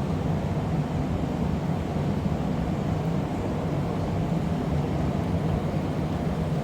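Steady low roar of a glassblowing studio's furnaces and their gas burners and blowers, even and unbroken.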